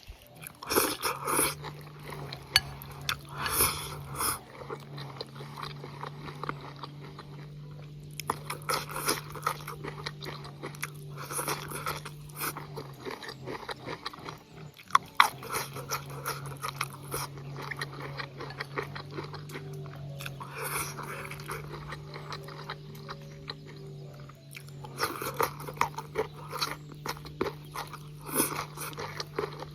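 Someone eating a crunchy meal of stir-fried bamboo shoots and pork, with bursts of biting and chewing that come and go, over a steady low hum.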